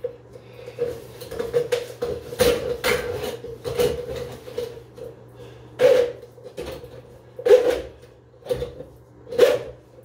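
Handheld drum auger (plumber's snake) turned and fed through the tub's overflow into the drain, the steel cable clattering and knocking against the drain pipe in irregular sharp knocks a second or two apart, over a steady low hum. The snake is working its way past the bend into the drain line.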